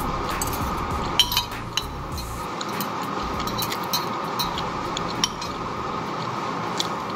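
Stainless steel fork and spoon clinking and scraping against a ceramic plate while the last bits of food are scooped up, a few sharp clinks spread through it, over a steady background hum.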